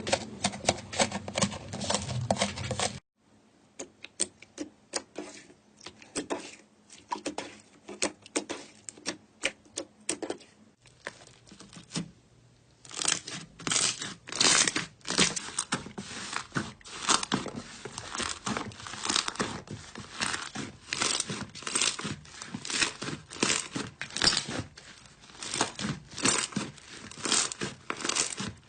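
Slime being squeezed, poked and stretched by hand, giving rapid, irregular crackles and pops. It drops to a much quieter crackle about three seconds in and comes back louder about four seconds from the middle.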